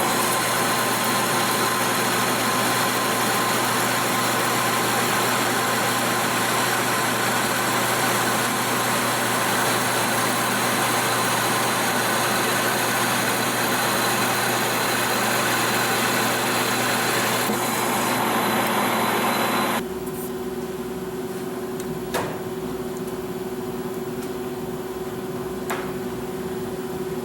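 Metal lathe taking a heavy quarter-inch-deep turning cut on a bushing: a steady, loud machining noise with a high tone over the motor hum. The cut ends about twenty seconds in, leaving the lathe running with a quieter steady hum and a couple of light clicks.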